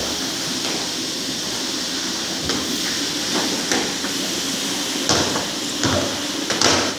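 Push broom and rubber floor squeegee scrubbing and pushing water across a wet, soapy tiled floor: a steady scraping hiss with a few sharp knocks, the loudest near the end.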